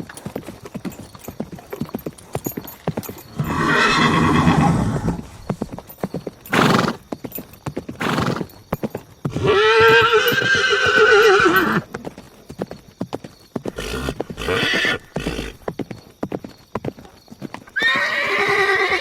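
Horse hooves clip-clopping throughout, with a horse neighing three times: once about four seconds in, a long loud whinny about halfway through, and again near the end.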